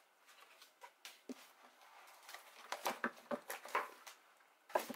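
Paper and card being handled: a run of short rustles and light taps as the card album is pressed flat, shut and picked up. The taps come thickest from about two to four seconds in, with one more brief clatter near the end.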